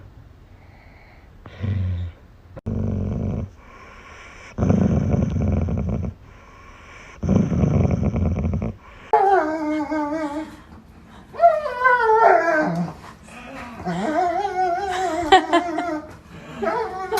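A dog growling in three low bursts, then giving long, wavering pitched cries.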